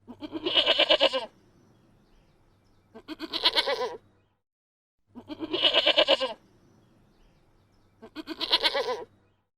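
A farm animal bleating four times; each call lasts about a second and has a quavering tremble, with gaps of two to three seconds between calls.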